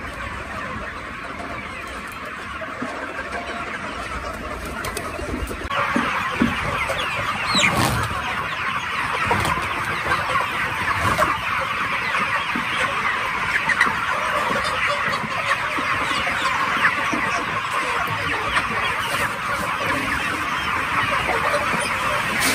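A large flock of 40-day-old chickens clucking all together in a dense, continuous chatter at feeding time. The chatter grows louder and denser about six seconds in.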